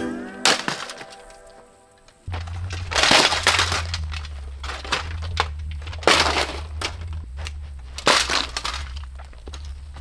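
Lasko B20200 box fan's plastic housing and grille being smashed: three heavy blows, about three, six and eight seconds in, each with plastic cracking and breaking, plus smaller cracks between them, over a steady low hum.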